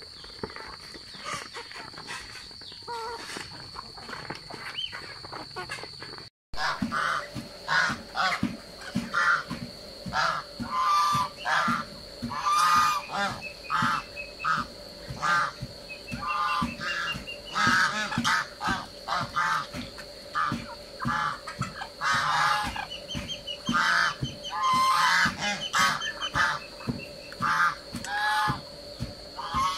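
Domestic geese honking over and over in short, loud calls, starting after a brief break about six seconds in; before that, only softer, quieter flock sounds.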